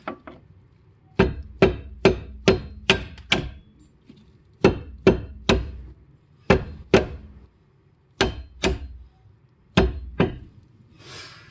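Sharp metal-on-metal hammer taps, about fifteen in short runs of two to six, driving the pad retaining pin into a six-piston Brembo brake caliper against the pressure of the pad spring clip.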